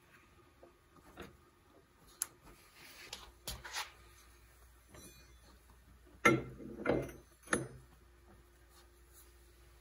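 Metal clinks of a snowmobile brake rotor being handled and slid onto the splined jackshaft. There are a few light clicks at first, then three louder clanks about two-thirds of the way in.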